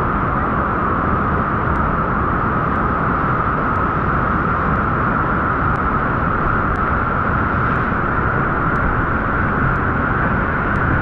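Loud, steady rush of water pouring over the artificial standing wave of a Citywave surf pool.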